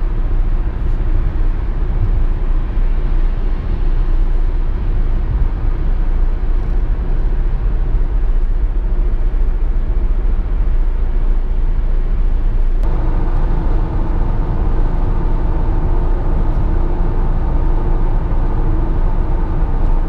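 Tire and wind noise inside a Toyota Prius Prime cabin, driving in EV mode so no engine is running: first at about 65 mph on Toyo Nano Energy tires. About 13 seconds in it switches to the same car at about 61 mph on Nokian Hakkapeliitta 9 studded winter tires, and the noise gains a steady banded hum from the studs, like mud tires.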